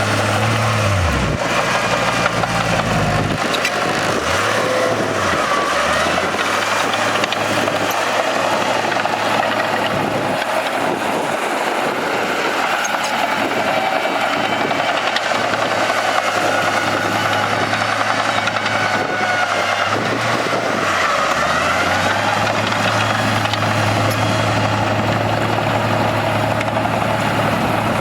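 Bulldozer's diesel engine running steadily under load, its pitch dipping and rising a few times as it works.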